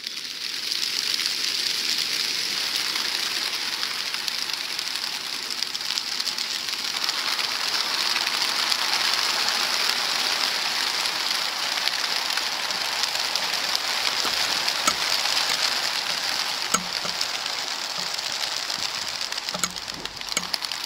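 Wings of a huge flock of racing pigeons flapping at once as they take off at a mass release: a dense, steady rush of wingbeats that sets in at once, with a few faint sharp clicks in the second half.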